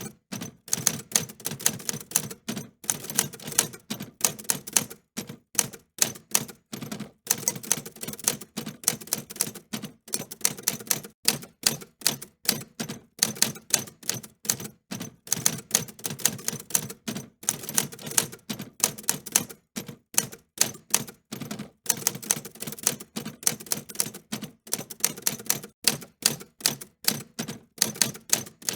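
Manual typewriter being typed on: a steady stream of sharp key clicks and typebar strikes, several a second in uneven bursts with brief pauses between them.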